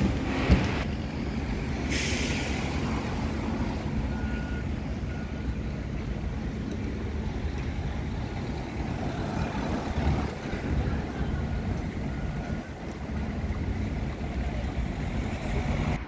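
Road traffic: vehicles running, a steady low rumble, with a short hiss about two seconds in and a few faint short beeps.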